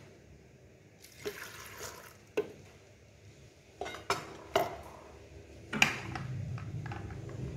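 Kitchen handling noises around a plastic blender jar: several sharp clinks and knocks of containers and utensils, with a brief rushing sound about a second in.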